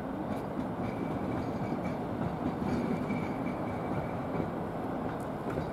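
A train approaching on the rails with a steady rumble, and a faint high-pitched whine that comes in about a second in and fades a couple of seconds later.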